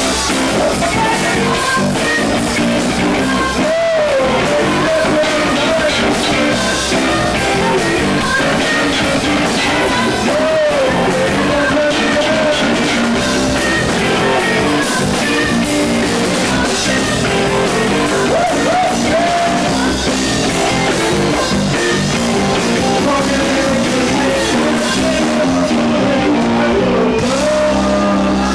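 Live rock band playing at full volume: drum kit, bass guitar and electric guitar, with a singer's voice over them.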